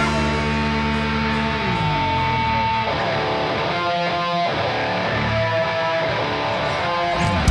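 Live rock band playing a sparse passage: electric guitar chords ring and sustain while a low bass line steps downward, with no drum hits. The full band with drums comes back in right at the end.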